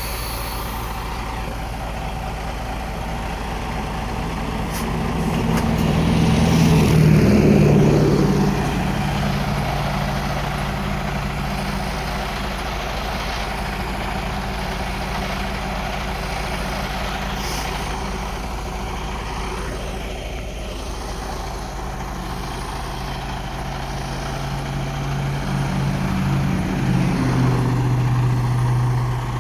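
Heavy truck engines running in passing road traffic. One truck swells loudest about seven seconds in and fades, and another steady engine drone builds from about two-thirds of the way through to near the end.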